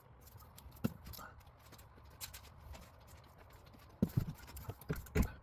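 Knocks and clatter of hand work on a garage door's rubber bottom seal and its aluminium retainer track as the seal is pulled through the track. A single knock comes about a second in, then a run of quick knocks near the end.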